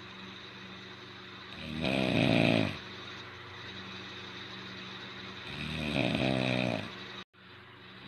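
A man sleeping on his back with his mouth open, snoring: two long, loud snores about four seconds apart.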